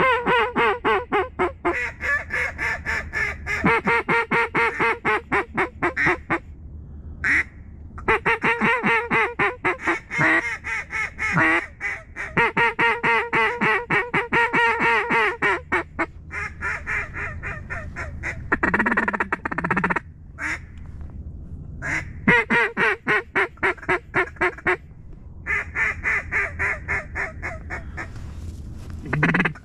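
Mallard duck calls blown in fast runs of quacks and chatter, each run lasting a few seconds with short pauses between, calling to incoming ducks.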